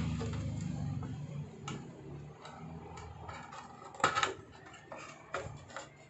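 Cracked black plastic motorcycle fender being handled and turned over, its loose pieces clicking and knocking against each other, with one louder knock about four seconds in. A low hum dies away in the first two seconds.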